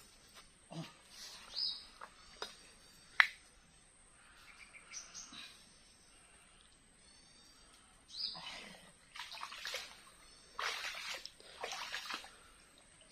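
Water and mud sloshing in several bursts in the second half as a hand gropes down into a muddy creek bed, feeling for a mud crab. Small birds chirp in the first half, with one sharp click about three seconds in.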